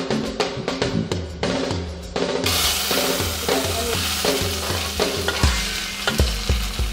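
Chopped onions dropped into hot oil in an aluminium pot, sizzling from about two and a half seconds in. Background music with a steady drum beat plays throughout.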